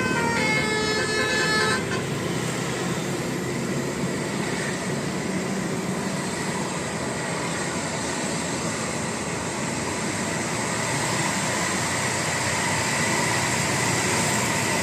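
A Basuri multi-tone 'telolet' bus horn plays a quick tune of stepped notes and stops about two seconds in. Steady road and engine noise follows.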